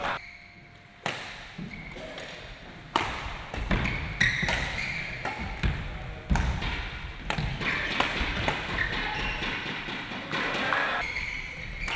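Badminton rally: a string of sharp racket strikes on the shuttlecock mixed with players' footsteps on the hard court floor, echoing in a sports hall.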